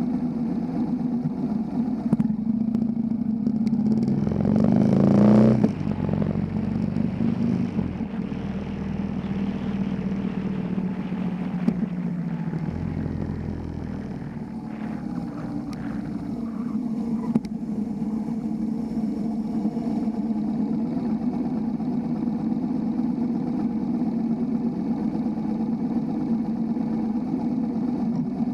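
Motorcycle engine running under way, with wind and road noise. The engine revs up about four seconds in and drops off suddenly after a second or so, then runs on steadily at cruising speed.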